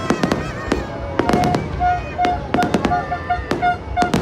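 Fireworks going off in quick succession, many sharp bangs and crackles. From about two seconds in, a short steady tone beeps repeatedly over them.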